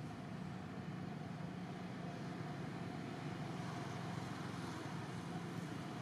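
A steady low rumble and hum under an even hiss, with no change and no animal calls standing out.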